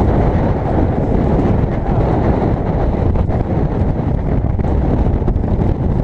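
Strong wind buffeting the microphone, over a boat's outboard motor running and water splashing along the hull.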